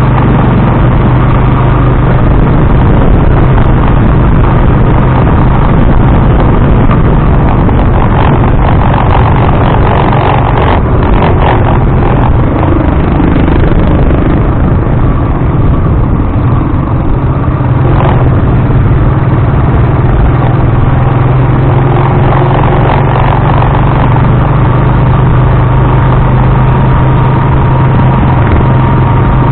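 Motorized tricycle's engine running steadily while riding, heard as a loud, constant low hum under dense rattling vibration noise picked up through the action camera's waterproof housing.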